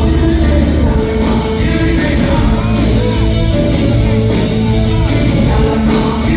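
A rock band playing live and loud, with singing over heavy bass and keyboard-like held notes, recorded close to the PA.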